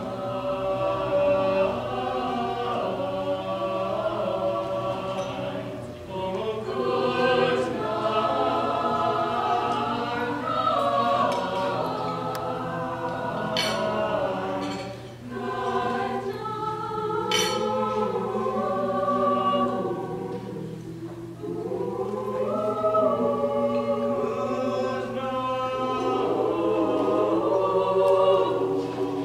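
Mixed choir of men's and women's voices singing in parts, in phrases broken by short pauses for breath.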